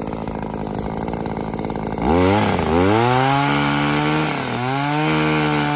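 Echo gas pole saw's small two-stroke engine idling, then revved hard about two seconds in and held at high speed. Its pitch dips briefly once and climbs back near the end.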